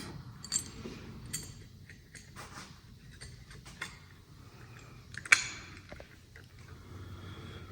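Small clicks and light rattling of parts being handled as a motorcycle handlebar control housing is fitted and clipped together, with one sharper click about five seconds in.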